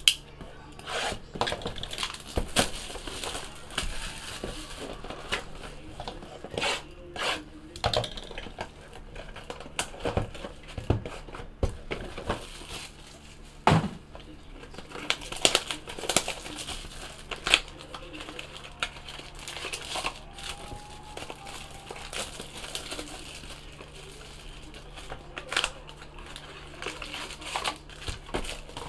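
Plastic shrink-wrap crinkling and being torn off a cardboard box of football trading cards. The box is then opened and its sealed card packs handled, in scattered crackles and sharp taps.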